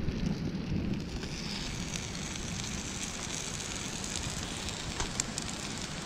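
Bacon and cherry tomatoes sizzling and crackling in a small frying pan, with a couple of sharp clicks about five seconds in.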